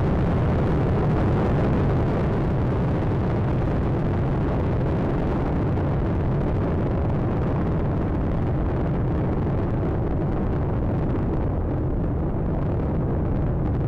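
Space Shuttle Atlantis's twin solid rocket boosters and three main engines during ascent: a loud, steady, deep rumble of rocket exhaust. Its higher tones thin out somewhat in the last few seconds.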